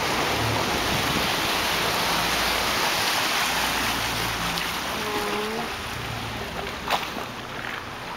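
Steady rush of water along the hull of a slowly moving boat, easing off toward the end, with one sharp knock about seven seconds in.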